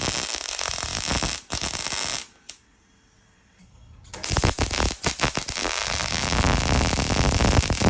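Welding arc crackling on the steel partition panel of a Toyota Sports 800. It runs in two stretches with a break of about two seconds between them.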